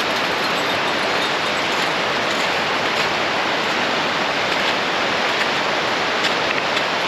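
A brook swollen with snowmelt and rain, rushing with a steady, unbroken roar of fast water.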